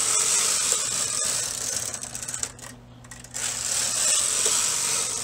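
Knitting machine carriage pushed across the needle bed and back, knitting two rows: a steady mechanical rattling swish for each pass, with a short pause about two and a half seconds in as the carriage changes direction.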